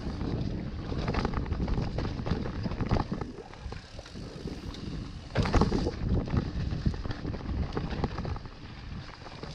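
Mountain bike riding fast down a dirt trail, heard from the rider's own camera: wind buffeting the microphone, tyres rumbling over the ground and the bike clattering over bumps, with a louder jolt about five and a half seconds in.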